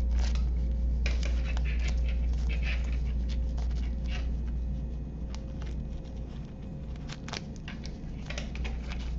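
Light handling noise: scattered small clicks and rustles as a hand-held perfboard circuit and its thin wires are turned and moved, over a steady low hum.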